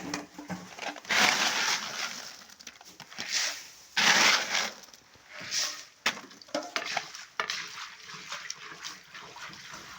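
Small fish crackers frying in hot oil in a pan: surges of sizzling and crackling, with clicks and clatter as they are stirred, strongest in the first half.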